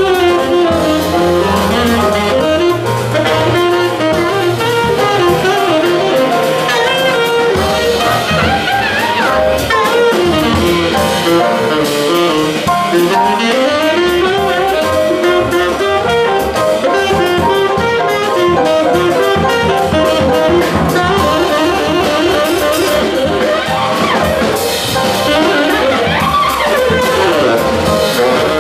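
Live jazz quartet: a tenor saxophone plays a solo line over piano, upright bass and drum kit.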